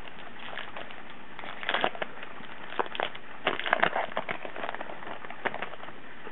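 Crinkling and crackling of a Topps baseball card pack wrapper being torn open and handled, in two bunches of quick crackles about two seconds apart.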